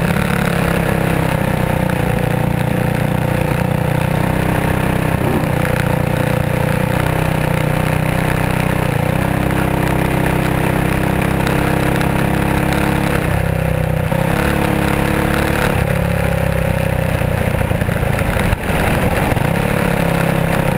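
Race car engine heard from on board a winged dirt-track sprint-style car, running steadily at speed. Its pitch holds mostly level, dipping briefly and coming back up a few times.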